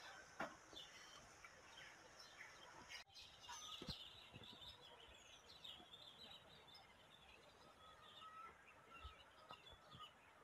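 Faint high-pitched chirps and scattered small clicks over a low background hiss, with a brief break in the sound about three seconds in.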